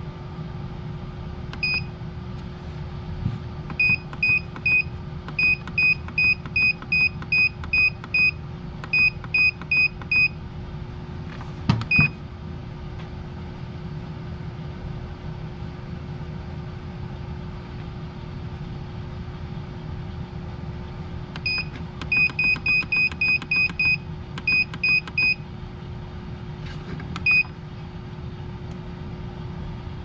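BN-Link digital temperature controller beeping with each button press as its set point is stepped down a tenth of a degree at a time: runs of short, identical high beeps, about three to four a second, with a click and a single beep around the middle and one last beep near the end. A steady low machine hum runs underneath.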